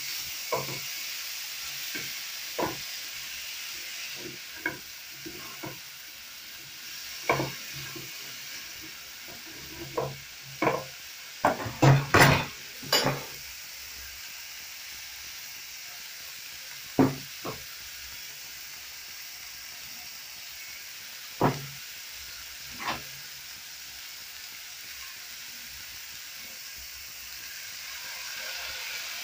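Chicken and vegetable stir-fry sizzling in a frying pan, with the scrapes and clicks of a spatula stirring it against the pan. A quick run of louder knocks comes near the middle, with a few single knocks later.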